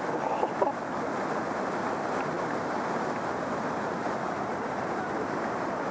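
Steady rushing roar of a high-volume whitewater river in spate, with water churning through large breaking waves.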